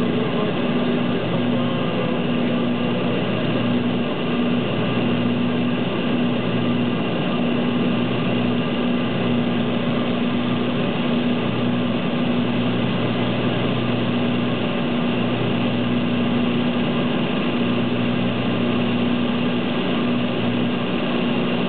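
Cessna Conquest's twin turboprop engines and propellers droning steadily, heard inside the cockpit on final approach. A constant low hum with steady higher whining tones over a continuous rush of air and engine noise.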